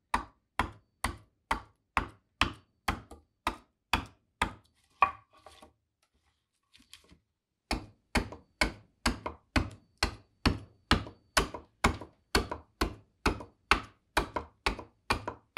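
Bowl adze chopping into green black walnut in short, straight strokes, a sharp knock about twice a second, with a pause of about two seconds around the middle before the chopping resumes.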